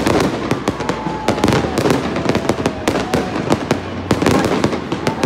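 Fireworks going off close by in a rapid, uneven string of sharp bangs and crackles, several a second.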